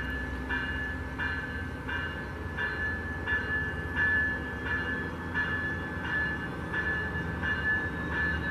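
Railroad warning bell ringing in an even rhythm, about three rings every two seconds, over the low rumble of a train.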